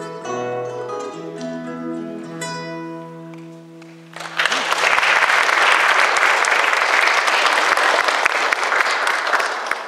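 Two nylon-string classical guitars playing the closing notes of a duet, the last notes ringing and fading. About four seconds in, loud audience applause breaks out and dies away near the end.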